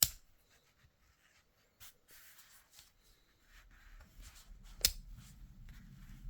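Metal multi-tools handled in the hands: a sharp metallic click at the start and another just before five seconds, with light rubbing and small clicks between. A low rumble of handling noise comes in about halfway through.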